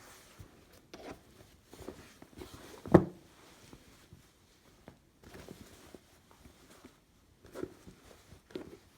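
Packaging being handled during an unboxing: scattered soft rustles and knocks, with one sharp knock about three seconds in, the loudest.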